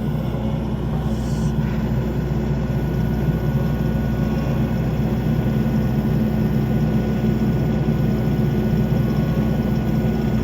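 Skid steer engine running steadily under load while drilling fence-post holes, a constant low engine drone.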